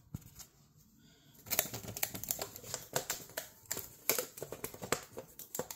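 Close-up handling noise: dense rustling and rapid clicking as things are moved about right at the microphone, starting about a second and a half in.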